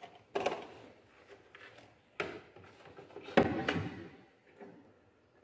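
Hard plastic knocks and clicks from handling the Chevrolet Celta's tail-light bulb-holder board and lamp housing as it is pushed into place. Three sharp knocks, the loudest about three and a half seconds in.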